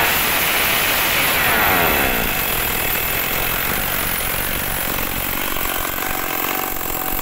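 Stihl MS 382 two-stroke chainsaw engine test-run after reassembly, with no bar or chain fitted. Its revs fall away over the first couple of seconds, and it then settles to a steady, lower-speed run.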